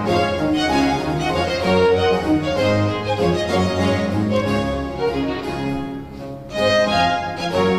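Baroque string ensemble playing, violins and cellos together; the music dips briefly about six seconds in and then picks up again.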